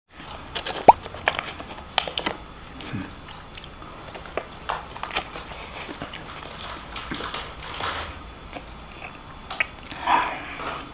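A person eating close to the microphone: irregular chewing and biting with scattered small crunches and clicks.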